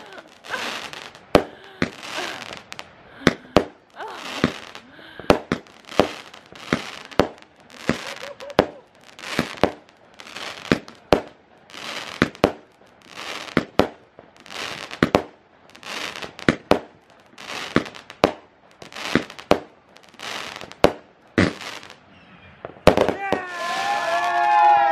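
A large multi-shot consumer firework firing a long series of shots, about one and a half a second, each a sharp bang with a hissing, crackling tail; the shots stop about 22 seconds in.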